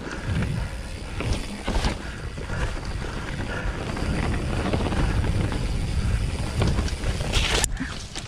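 Wind buffeting the microphone over the rumble of mountain-bike tyres on a dirt trail, with scattered knocks and rattles from the bike over bumps during a downhill ride. Near the end a short louder hiss, then the noise drops off suddenly.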